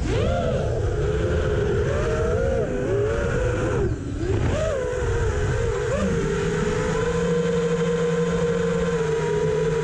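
Quadcopter drone's brushless motors whining, the pitch swinging up and down with throttle changes, then settling into a steady hum from about six seconds in.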